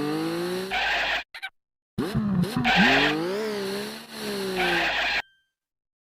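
Cartoon tire-screech skid sound effect: a squealing, wavering pitched glide that cuts off about a second in, then a longer one of about three seconds that stops abruptly.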